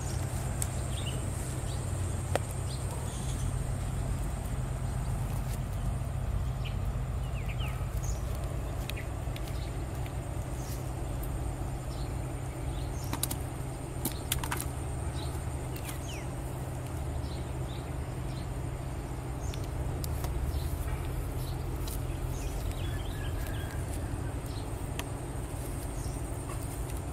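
Outdoor rural ambience: a steady low rumble, with scattered faint bird chirps and a thin steady high-pitched drone. There are a few sharp clicks from handling about halfway through.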